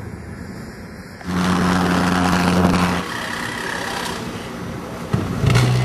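Several short engine-noise clips cut together, each ending abruptly. The loudest runs for about two seconds from just over a second in, a steady hum under a rushing noise.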